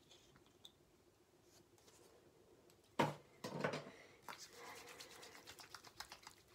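A sharp click about three seconds in, then soft, scratchy rubbing of hands working facial cleanser between the palms.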